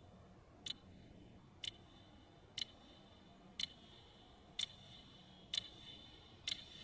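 Bedside alarm clock ticking, faint and even, about once a second, each tick with a short metallic ring.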